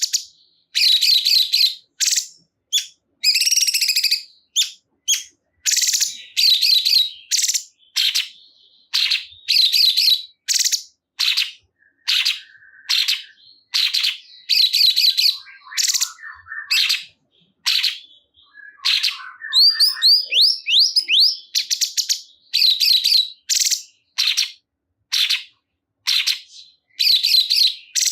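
Cungkok songbird singing in full voice: quick high chirps and rattling trills in short phrases, one after another with brief pauses between.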